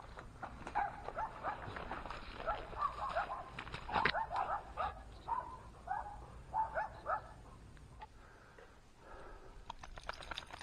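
Giant schnauzer whining and yipping in a quick series of short high calls, with a sharp knock about four seconds in.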